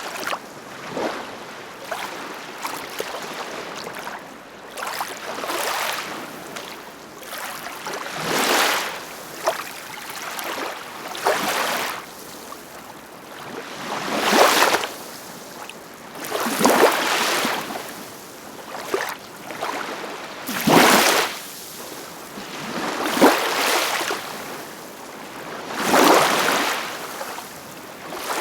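Ocean waves breaking and washing on a shore, a steady hiss of surf with a wave cresting every two to three seconds, the biggest ones in the second half.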